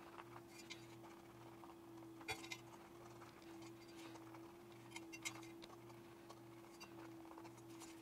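Near silence: faint taps and rustles of fingers pressing around an 8-inch Boston Acoustics A60 woofer's cone and freshly glued foam surround, working it to seat the foam. A couple of sharper clicks stand out, about two seconds in and around five seconds in, over a steady faint hum.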